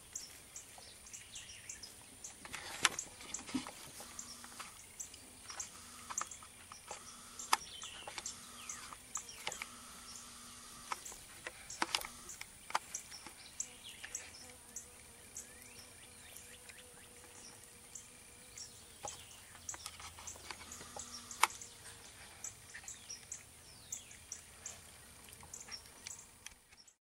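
Outdoor ambience: birds chirping over a faint steady high hiss, with scattered sharp clicks and taps throughout. The loudest clicks come about 3, 12 and 21 seconds in.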